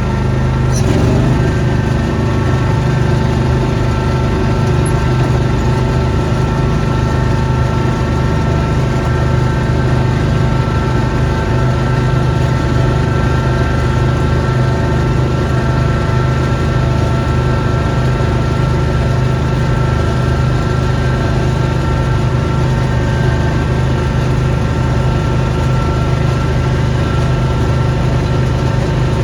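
Small engine of a snowblowing machine running steadily at a constant speed, a low hum with a steady whine above it. A brief click about a second in.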